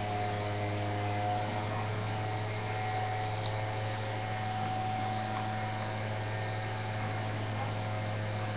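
Steady low electrical hum, with fainter tones held over it and a small tick about three and a half seconds in.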